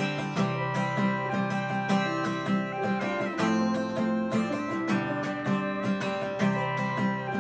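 Acoustic guitar strumming chords in a laid-back instrumental passage, with no singing.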